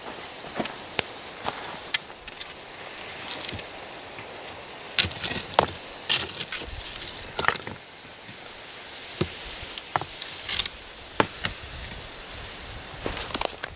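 Hot coals and rocks in a pit oven hissing steadily as wet, leaf-wrapped food steams on them, with scattered sharp crackles and knocks as a stick prods the stones.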